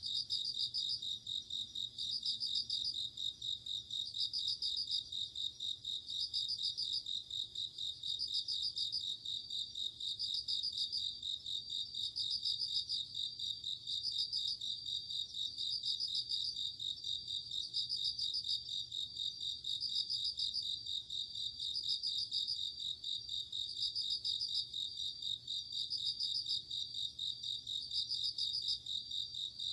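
A chorus of crickets calling at night, among them Japanese bell crickets (suzumushi). A steady high trill runs throughout, with louder ringing bursts repeating about every two seconds.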